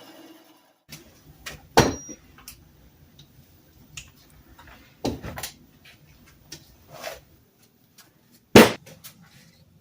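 A series of sharp clicks and knocks from hard objects being handled, with three louder knocks about two, five and eight and a half seconds in and fainter ticks between them.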